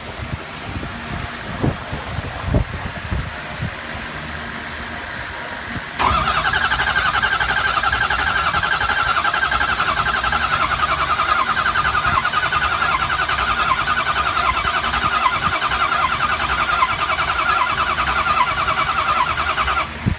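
2003 Ford 6.0 L Power Stroke diesel cranking on its starter for about fourteen seconds with a fast, even rattle and whine, then stopping abruptly without the engine catching. This is a no-start: the engine still won't fire after its high-pressure oil pump was replaced. Before the cranking there is a low hum with a few knocks.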